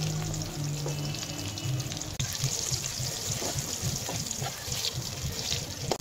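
Hot white oil sizzling around whole brinjals frying in a kadai. The sizzle grows louder about two seconds in as the brinjals are turned, with a few light knocks of the ladle and spatula.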